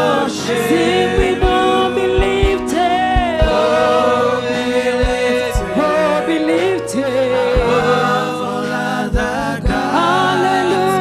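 Congregational gospel worship song: voices singing over held keyboard chords, with low drum thumps every second or so.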